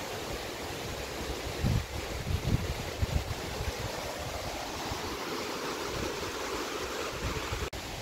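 River Ribble's water rushing steadily, with a few low thuds about two to three seconds in.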